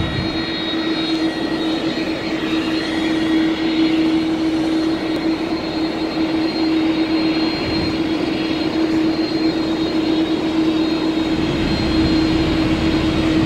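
Jet engines of a twin-engine Airbus airliner taxiing: a steady jet rush with a constant low hum, growing slowly louder toward the end.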